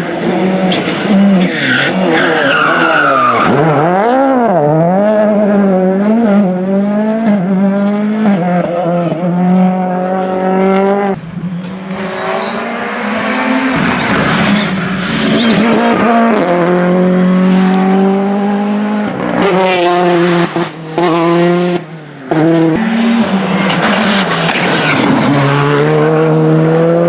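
Rally cars driven hard on a special stage: engine pitch repeatedly climbing and dropping with throttle and gear changes. The sound breaks off abruptly several times and starts again.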